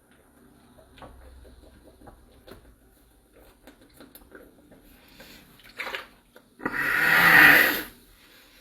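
A man's long, loud belch lasting about a second near the end, brought up by a large amount of carbonated Sprite drunk quickly. Before it are faint rustles and small clicks and one short, quieter burst.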